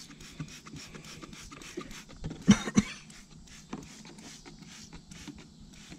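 Trigger spray bottle of degreaser being pumped repeatedly, a short spritz about three times a second. Two louder knocks about two and a half seconds in.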